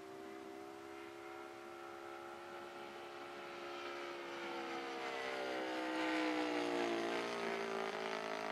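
Saito FG-20 single-cylinder four-stroke gas engine of an RC Cessna 182 model plane droning in flight. It grows louder as the plane comes closer, and its pitch drops a little past the peak, about seven seconds in, as it passes by.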